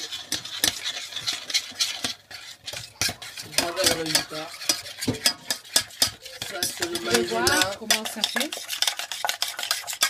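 A cornstarch mixture being stirred briskly in a stainless steel bowl, with rapid clicking and scraping against the metal.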